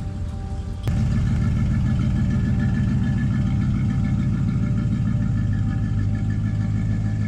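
A car engine idling steadily, cutting in abruptly about a second in.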